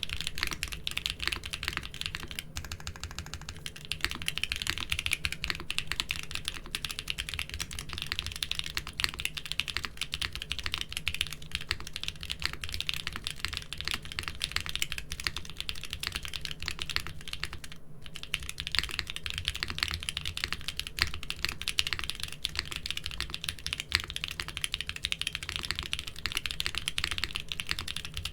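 Continuous fast typing on a mechanical keyboard fitted with doubleshot keycaps, many keystrokes a second, each a sharp clack, with brief lulls about two and a half seconds in and again near eighteen seconds in.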